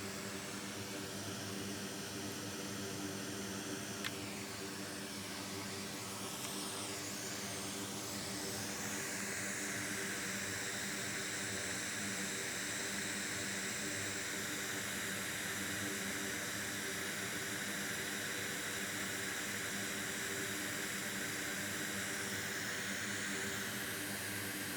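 Steady whirring hiss of a workbench fan or air blower over a low electrical hum. It gets louder and brighter about eight seconds in, with a single small click about four seconds in.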